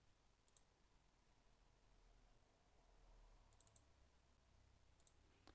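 Near silence: room tone with a few faint computer mouse clicks, one about half a second in, a quick run of clicks around three and a half seconds, and one near the end.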